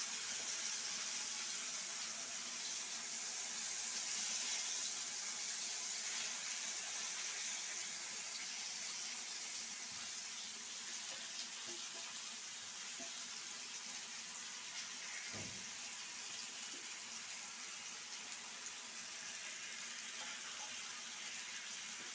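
Batter-coated potato slices sizzling as they shallow-fry in hot mustard oil in a frying pan: a steady, even hiss that slowly gets quieter, with a few faint clicks as slices are laid in.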